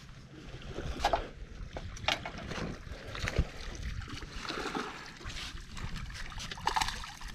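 Water lapping against a small fishing boat's hull, with wind noise and a few irregular knocks.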